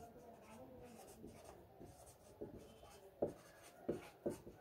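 Felt-tip marker writing on paper: faint scratching strokes, with a few sharper taps of the tip near the end.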